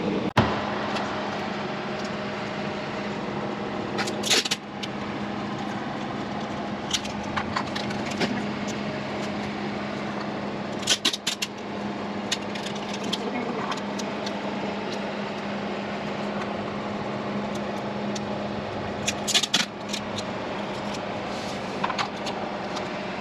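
Scattered clicks and clatters of hand tools and plastic door-trim parts being handled, with louder clusters about 4, 11 and 19 seconds in, over a steady low hum.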